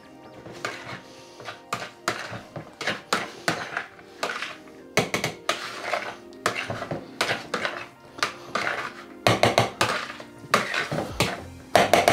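A fork stirring and beating in a plastic mixing bowl: many quick, irregular taps and scrapes against the bowl, over background music.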